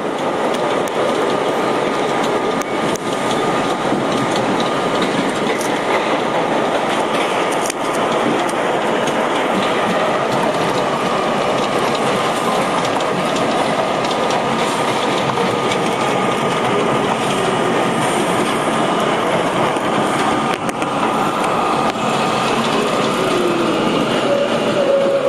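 Budd-built R32 subway car running through a tunnel, with a loud, steady rumble and clatter of steel wheels on the rails. A thin steady whine rides over the rumble, and near the end a brief squealing tone comes in as the train runs along a station platform.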